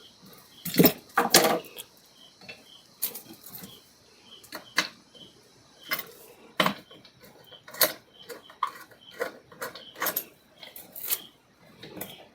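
Irregular clicks and knocks of hands and tools working wires into the terminals of a plastic electrical switch board, the loudest a close pair about a second in.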